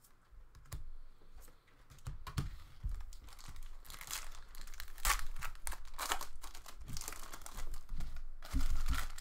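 Foil trading-card pack wrapper crinkling and tearing as it is opened by hand, in irregular crackly bursts that start about two seconds in, with a low thump near the end.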